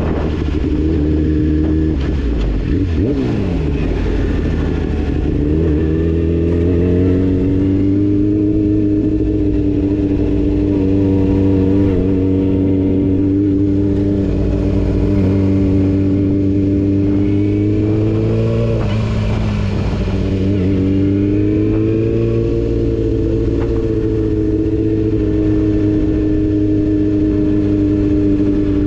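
Sport motorcycle engine running at low revs while the bike rolls slowly. The pitch holds fairly steady, sags briefly a few seconds in and again a little past halfway, then rises back as the throttle opens.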